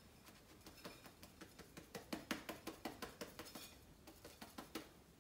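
Quiet, quick tapping and rattling, about five taps a second, as spent dried rosemary is shaken and knocked out of a stainless steel distiller herb chamber onto a plate. The taps start about a second in, are loudest in the middle and stop near the end.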